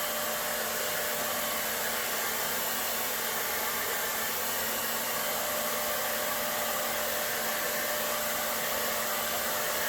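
Electric hot-air blower running steadily, heating old grip tape on a golf club shaft to soften its adhesive for peeling off; a steady rush of air with a faint hum under it.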